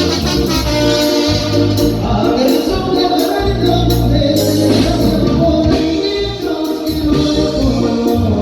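Mexican banda brass band playing live: a tuba bass line moving under the horns' melody.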